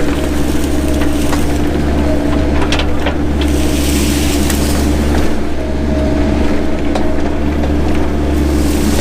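Mini excavator's diesel engine running steadily, with sharp cracks and rustling of underbrush being cleared.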